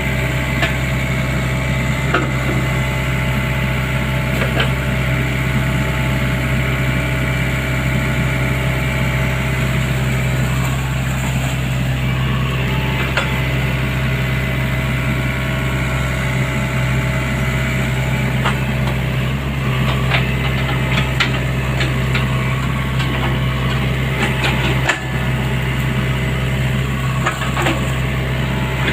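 Sany excavator's diesel engine running steadily, with scattered knocks and clanks throughout.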